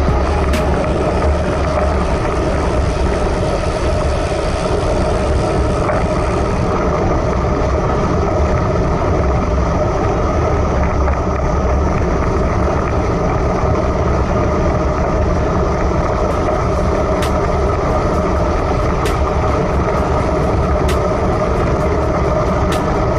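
Steady wind rush and road noise on the microphone of a bike-mounted camera, riding a road bike on asphalt at about 26 to 29 km/h. A few faint ticks come through near the start and again in the last several seconds.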